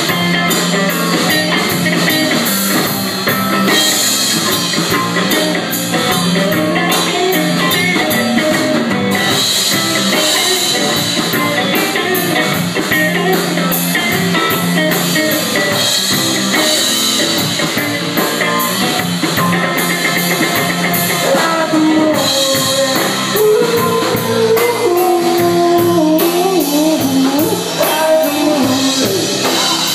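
Rock band playing with drum kit and electric guitar, keeping a steady beat, with a wavering melodic line rising and falling in the second half.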